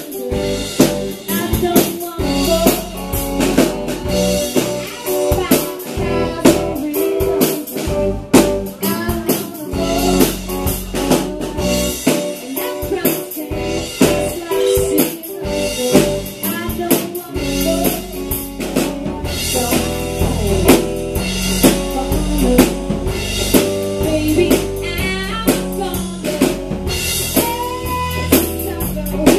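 Live rock band playing: a drum kit with snare hits keeps a steady beat under electric guitar, with some singing.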